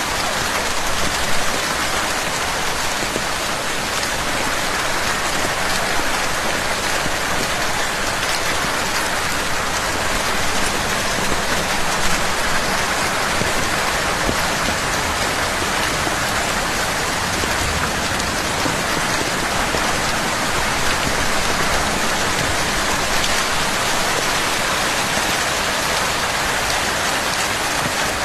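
Steady heavy rain falling and pattering on a surface, dense and even.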